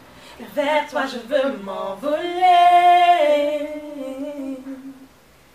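A woman singing unaccompanied: a few short rising phrases, then a long held note about two seconds in that steps down and fades away near the end.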